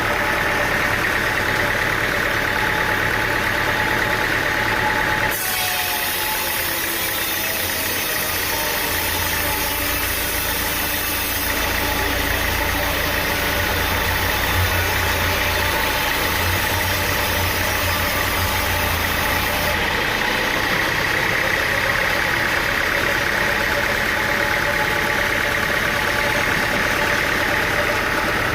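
Sawmill machinery engine running steadily. The sound changes abruptly about five seconds in and again about twenty seconds in.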